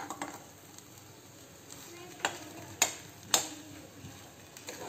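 Steel spoon stirring and scraping thick mashed potato filling in a hot pan, over a faint sizzle. The spoon knocks sharply against the pan three times a little past halfway.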